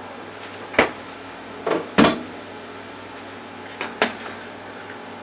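A metal spoon clinking against the side of a stainless-steel saucepan while stirring thick chowder: about five sharp clinks, the loudest about two seconds in, over a steady low hum.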